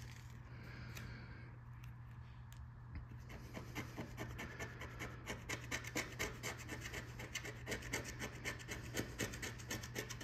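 A coin scratching the coating off a paper lottery scratch ticket in quick, closely spaced strokes, starting about three seconds in after a softer rustle of the paper tickets being handled.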